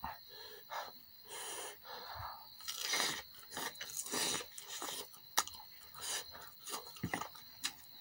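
Eating a spicy chicken drumstick by hand: wet chewing and many short lip-smacking clicks, broken by several hissing breaths drawn in and let out through the mouth.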